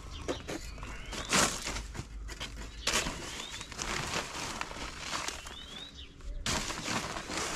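Paper lime sack rustling and a scoop scraping as hydrated lime is scooped into a tub of sand for mortar, with three louder scrapes about a second and a half in, three seconds in and near the end. Small birds chirp with short rising calls in the background.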